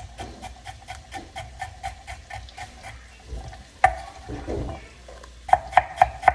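Kitchen knife chopping a carrot on a cutting board, a steady rhythm of about four to five strokes a second. The strokes get louder and sharper near the end, with one harder knock about four seconds in.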